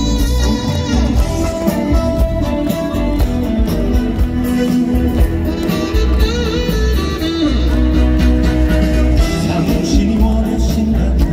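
Live amplified music at a concert: the band accompaniment of a Korean song with a steady beat and held instrumental notes, with a singing voice in places.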